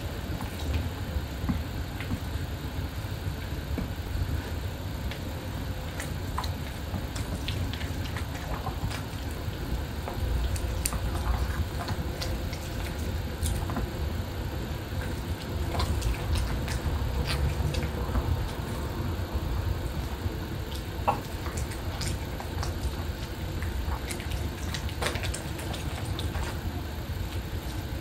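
Pomeranians chewing and licking grilled beef, close-miked, with scattered small clicks and smacks over a steady low rumble.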